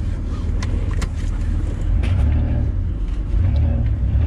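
Mitsubishi Pajero's V6 engine running with a steady low rumble, heard from inside the cab, with a few sharp clicks in the first two seconds.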